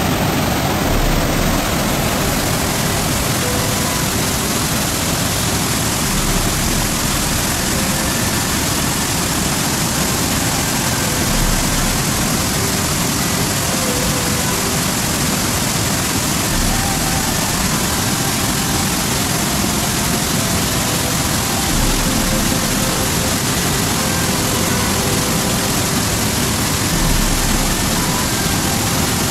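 Fast, silt-laden glacial meltwater creek rushing and churning over boulders close by: a loud, steady wash of water noise.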